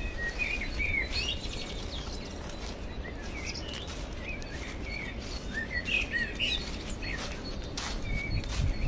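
Small songbirds chirping and twittering, many short rising and falling notes throughout, over a steady low rumble.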